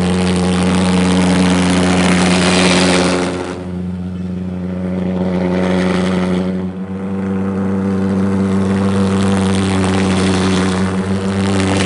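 Valveless pulsejet engines of a jet go-kart running: a loud, steady, low buzzing drone that holds one pitch, dipping briefly about three and a half seconds in and again near seven seconds.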